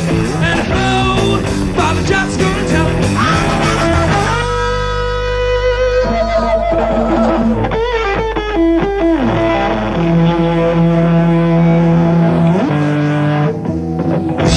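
Hard-rock band playing an instrumental passage with distorted electric guitars, bass and drums, and no singing. About four seconds in, the drums drop out, leaving held, sliding distorted guitar notes over a low bass drone.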